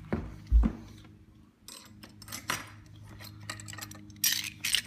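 Small metal lock parts, mounting plates and screws, clinking and rattling as they are handled and fitted, with two sharp knocks in the first second, the second the loudest.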